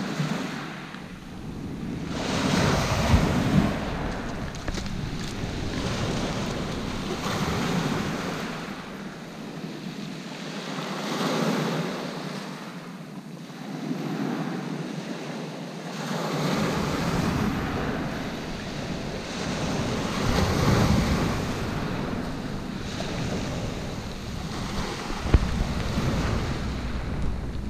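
Small waves breaking on a pebble beach and washing over the stones, the surf swelling and fading every few seconds. Wind buffets the microphone at times.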